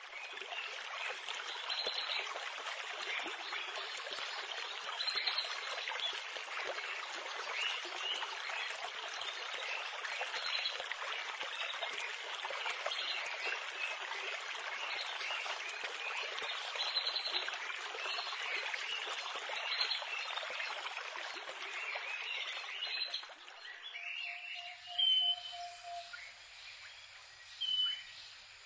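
Running water with many birds chirping over it. Near the end the rush falls away, leaving a quieter background with a few separate bird calls.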